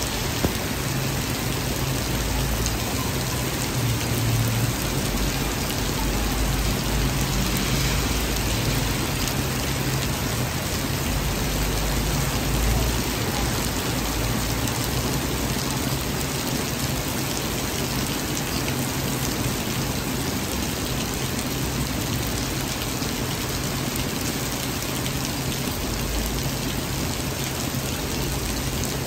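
Heavy rain pouring down steadily onto a city street, a dense, even hiss, with a low rumble underneath that swells and fades.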